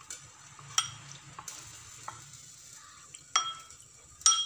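Metal spoon stirring cornstarch and water in a bowl, scraping, with a few sharp ringing clinks of the spoon against the bowl, the loudest near the end.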